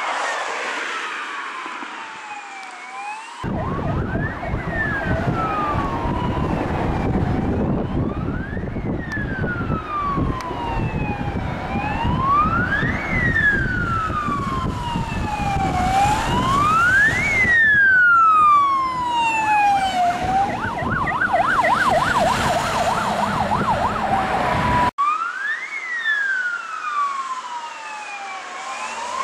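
Fire engine sirens wailing, several slow rising and falling sweeps overlapping as fire engines and a command car pass on an emergency run. About two-thirds of the way through, one siren switches briefly to a fast yelp. A heavy low rumble from the passing trucks runs under it for most of the time.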